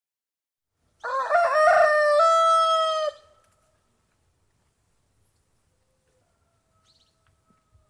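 A rooster crowing once, a single cock-a-doodle-doo lasting about two seconds that ends abruptly; a much fainter drawn-out call follows near the end.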